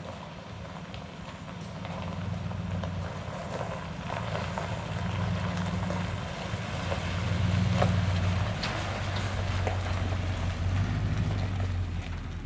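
Pickup truck towing a trailer, driving slowly along a dirt road: a low engine hum with tyres crunching and small rattles, getting louder as it approaches and loudest about eight seconds in as it goes by.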